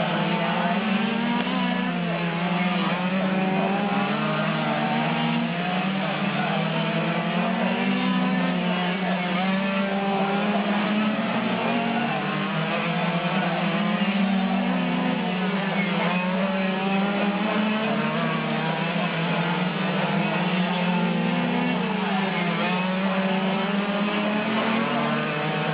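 Several quarter-scale RC race cars' small two-stroke gas engines buzzing and revving as they lap together. The overlapping engine notes rise and fall constantly through corners and straights.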